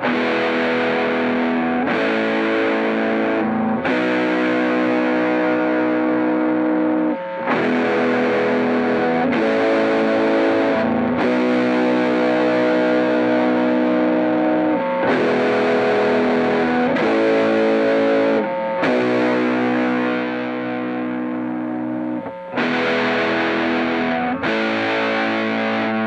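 Electric guitar (Fender Coronado II) playing sustained, heavily distorted chords through a Greer Gorilla Warfare MKII, a RAT-style LM308 distortion/fuzz pedal, into a Strymon Iridium amp and cab simulator. Each chord rings for a second or several, and there are short breaks between phrases.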